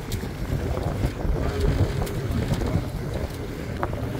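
Wind buffeting the microphone aboard a small boat at sea: a steady, gusting low rumble with a few faint clicks.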